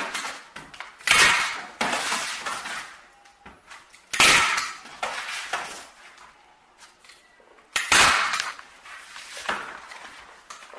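Hand staple gun firing staples through canvas into wooden stretcher strips: several sharp snaps, the loudest about three seconds apart, with canvas rustling and handling between them.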